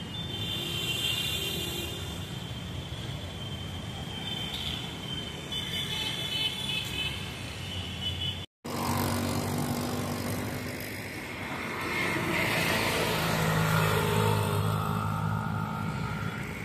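Road traffic and a vehicle running along a city street, steady throughout. The sound drops out for a moment about halfway through, then a low engine hum grows louder near the end.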